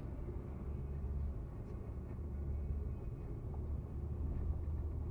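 Steady low rumble of a car's engine and tyres at highway speed, heard from inside the cabin through a dashcam microphone.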